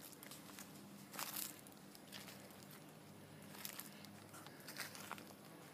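Faint, scattered crunches of dry leaf litter and twigs, a few in a row about a second apart, over a quiet background.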